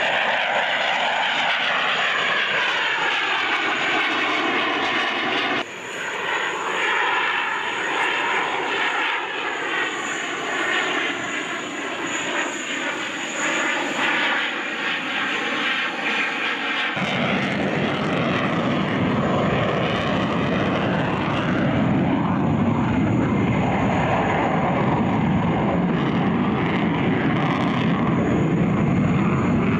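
A Mirage 2000-9 fighter's single M53-P2 jet engine, loud and steady as the jet flies past, its tone sweeping and falling. The sound changes abruptly twice, about a fifth of the way in and just past halfway, and turns into a deeper rumble for the second half.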